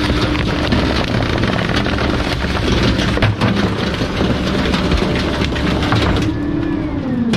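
Bulky-item collection truck running, with rattling and clatter throughout and a steady hum that falls in pitch near the end.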